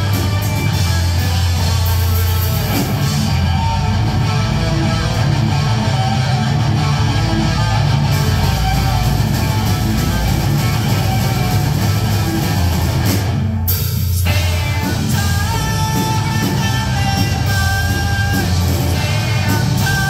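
Live heavy rock band playing loud: distorted electric guitars, bass guitar and drums, with sung vocals. The band cuts out for a brief break about two-thirds of the way through, then comes back in with the vocals.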